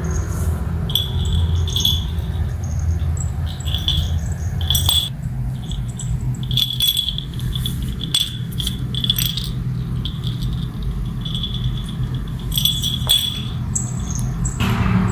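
Small collar bell on a kitten jingling in many short bursts as the kitten moves about, over a low steady hum that is louder for the first few seconds.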